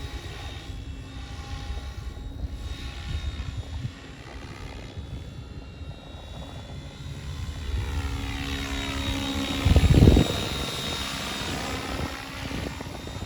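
Oxy 5 HF electric radio-controlled helicopter in flight, its rotor sound shifting in pitch and level as it moves around and growing louder in the second half. There is a brief loud low rush about ten seconds in.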